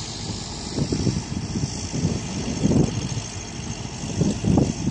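Machinery running steadily, like an engine, with irregular low rumbles swelling and fading over it.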